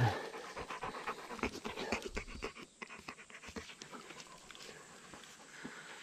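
Large dog panting rapidly with its mouth open, worn out from exertion on a hill walk. The panting grows fainter about halfway through.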